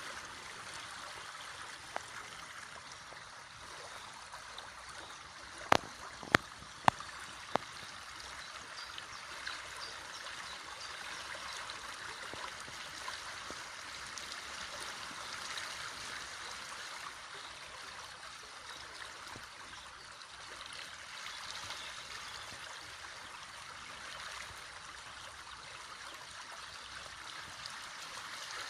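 River water rushing steadily over rocks, an even noise throughout. About six seconds in come four sharp clicks in quick succession.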